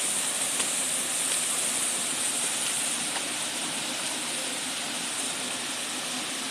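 Waterfall rushing: a steady, unbroken roar of falling water, strongest in the high hiss.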